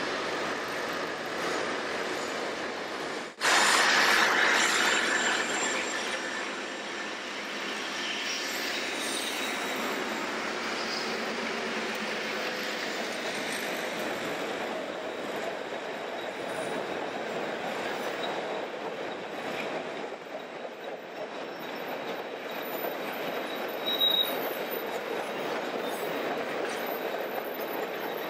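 Narrow-gauge passenger cars of a diesel-hauled train rolling over a trestle bridge: a steady rumble and clatter of wheels on rail. The sound drops out for an instant about three seconds in and returns louder, and a short high squeal comes near the end.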